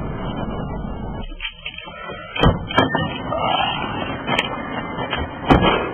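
Car doors opening and shutting as people climb out of a parked car. A steady low rumble stops about a second in, then come several sharp clicks and thumps, the loudest near the end.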